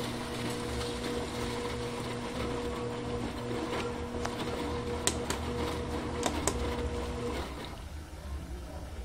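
Bosch washing machine running with a steady hum and a low rumble, with a few sharp clicks; the hum cuts off about three-quarters of the way through.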